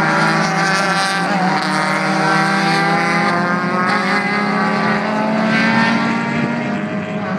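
Several race car engines running together as a group of cars drives past on a pace lap. The engine notes overlap and drift slowly up and down in pitch, fading a little near the end.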